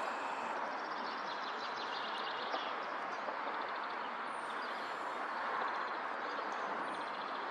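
Steady outdoor background noise, with faint rapid high twittering of small birds in stretches.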